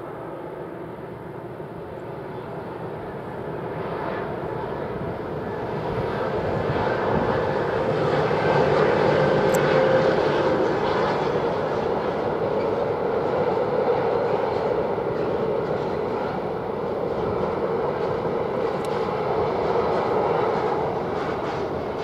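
Container freight train passing: the locomotive's steady drone grows louder over the first ten seconds, then the train holds at a steady level as the wagons roll by.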